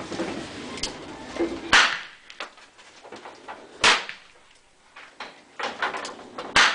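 Three revolver shots about two seconds apart, the hammer cocked by hand before each shot.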